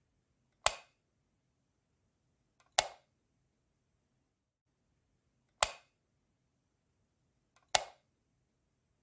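A light switch clicked four times, a couple of seconds apart, turning an incandescent bulb on and off. Each click is a single sharp snap with a brief tail.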